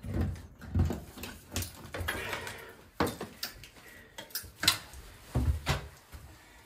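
Irregular knocks, scrapes and clatter of loose rubble and hand-held tools being handled at a broken-open stone wall, with a few heavier thumps, the first about a second in and another near the end.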